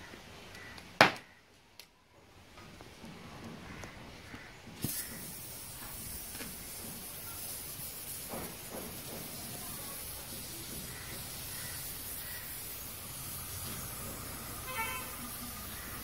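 Gas welding torch hissing steadily as gas flows from its tip and burns as a small flame. The hiss comes on abruptly about five seconds in. A sharp click about a second in is the loudest sound.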